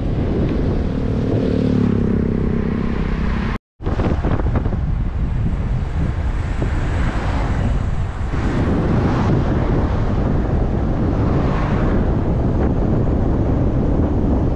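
Wind buffeting the microphone of a camera on a moving road bicycle: a loud, steady rush of noise. A low humming tone runs under it for the first three seconds, and the sound cuts out completely for a moment just under four seconds in.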